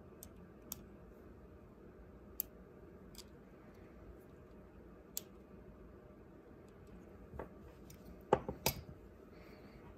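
Small metal tools clicking against a die-cast DCP model truck's front axle as a tie rod is worked into place with tweezers: a few faint, widely spaced ticks, then a short cluster of louder clicks near the end as the tools are handled.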